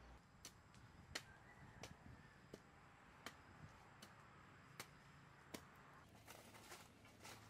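Hoe blade chopping into soil and manure, a faint series of sharp strikes about every half second to a second.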